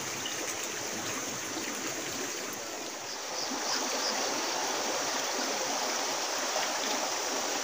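Shallow river water running over rocks into a pool: a steady rush, a little louder from about three seconds in.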